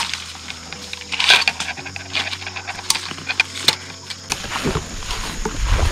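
Handling noise of a hunting rifle and gear: scattered clicks, knocks and rustles as the rifle is lifted by its sling among brush. A low rumble builds near the end.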